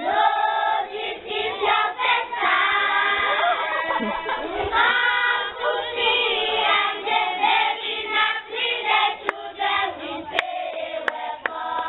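A group of young children singing together in a rhythmic song, their voices breaking in a regular beat. A few sharp clicks come near the end.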